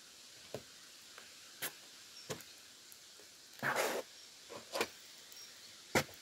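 Rubber-soled high-top sneakers shifting on the weathered wooden planks of a picnic bench: a handful of short knocks and, about three and a half seconds in, one longer scuff.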